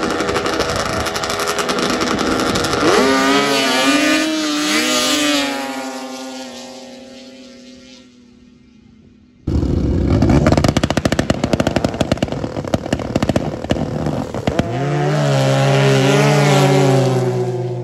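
Racing snowmobiles at full throttle: a loud engine note that wavers in pitch and then fades away as the sleds run off down the track. About halfway through another run starts suddenly, loud again, settling into a steady high engine note near the end.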